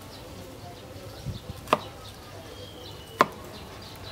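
Large kitchen knife chopping through green bell pepper onto a wooden cutting board: two sharp chops about one and a half seconds apart, with a softer knock just before the first.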